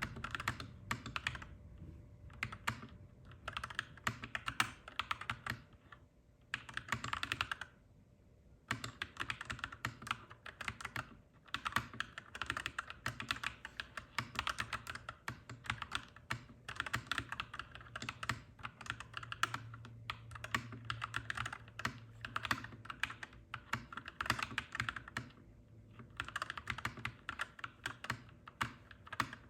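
Clacky mechanical keyboard typing in quick runs of keystrokes, broken by short pauses, with a faint low hum underneath.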